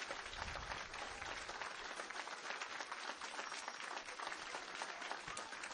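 Audience applause: many hands clapping together.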